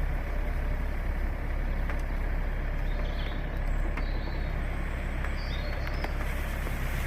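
A motor vehicle engine running steadily with a low rumble.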